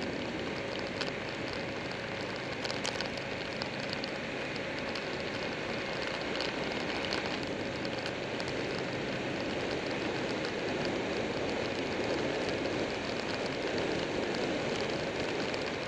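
Steady wind rush over the microphone of a camera on a moving Buell 1125R motorcycle, with the bike's V-twin engine running underneath. It grows a little louder in the second half.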